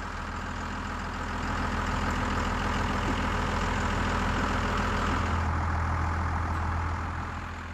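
Vehicle engine running under load as it hauls on the tie wire to raise a wind-turbine tower on its gin pole. Its sound swells about a second and a half in, holds steady, and eases off near the end.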